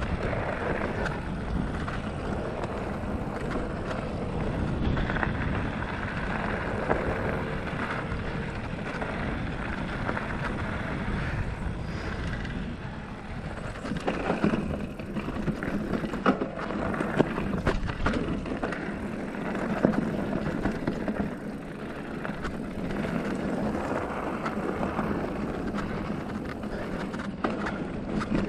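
Felt Decree 3 mountain bike ridden over a dirt trail: steady tyre rumble and drivetrain rattle, with a run of sharp knocks and clatters as it crosses rocky ground about halfway through.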